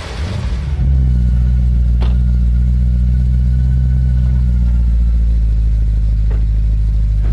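BMW E92 M3 V8 idling loudly and steadily with a deep, even drone. In the first second it is preceded by the tail end of a Porsche 911 GT3's flat-six running. Two faint clicks come about two and six seconds in.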